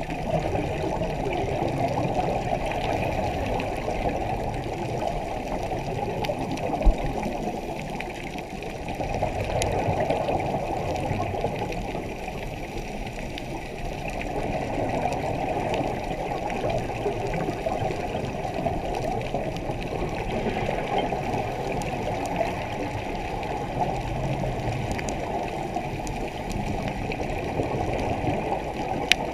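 Steady, muffled water noise of an underwater recording, swelling a little for a couple of seconds, with a single sharp knock about seven seconds in.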